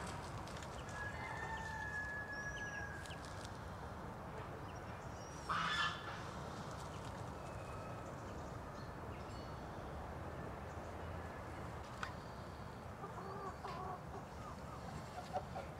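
Domestic chickens clucking and calling over steady outdoor ambience, with one short, loud burst of sound about six seconds in.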